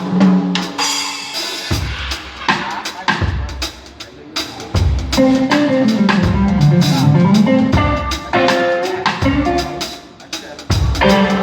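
A live band playing during a sound check: a drum kit with kick, snare and rimshot strikes, with other pitched instruments sustaining notes over it.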